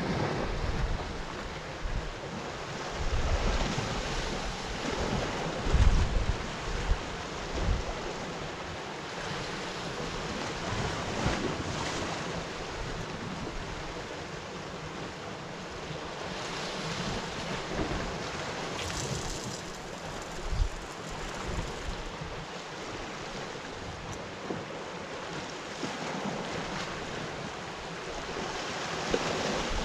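Sea waves crashing and surging against rocky cliffs, with strong gusty wind buffeting the microphone in low rumbles every few seconds.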